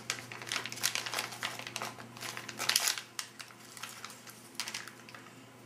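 MRE brownie pouch crinkling as it is handled and turned in the hands: a run of irregular crackles.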